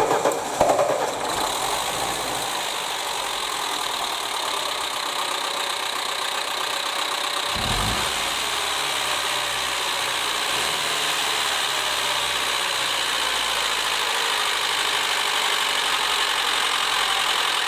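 Lada Niva engine idling steadily, its valve gear noisy from worn camshaft lobes and worn rocker arms.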